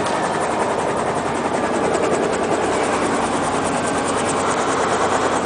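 Helicopter running steadily: turbine whine and rotor noise with a fast, even rotor beat.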